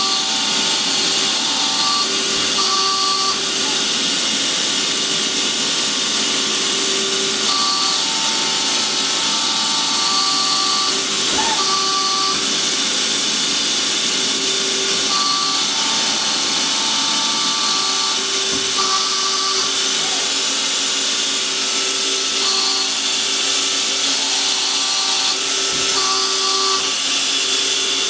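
Strippit LVD CNC hydraulic press brake running: a steady high hiss-like machine hum, with short whining tones that come and go every few seconds.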